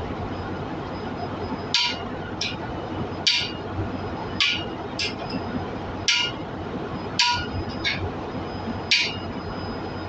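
Hammer striking a steel driver to press a new exhaust valve seat into a cylinder head: six sharp, ringing metal-on-metal blows about a second or so apart, several followed by a lighter tap.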